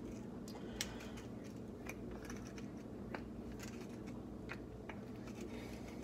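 Wooden pepper mill being twisted by hand, its grinder cracking peppercorns with irregular crackling clicks, over a low steady hum.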